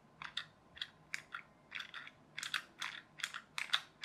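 Quick, irregular run of sharp plastic clicks as a toy RC car's steering is switched left and right from its transmitter during a receiver test.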